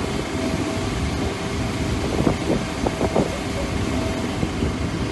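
Steady mechanical rumble with a constant hum, like engine noise across an airport apron.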